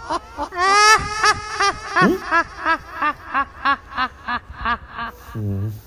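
A person laughing in a long, high-pitched run of 'ha-ha-ha' pulses, about three to four a second, that grows fainter toward the end. Near the end comes a brief low falling sound.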